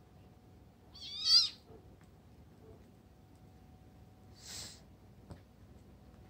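A kitten gives one short, high-pitched, wavering meow about a second in, a squeal during rough play-fighting with another kitten. A softer, breathy hiss-like sound follows a few seconds later.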